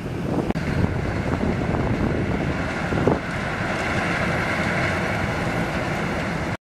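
Wind buffeting the microphone over the low rumble of the cruise ship Mein Schiff 1 moving through the harbour, with a steadier hiss in the second half. The sound cuts off suddenly near the end.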